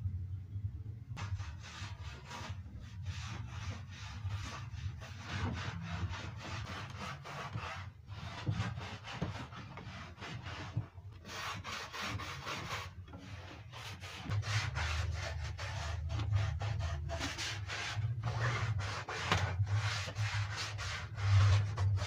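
A cloth rubbing and wiping along a wooden bed frame in quick repeated strokes, dusting it, starting about a second in and broken by short pauses. A low steady hum runs underneath.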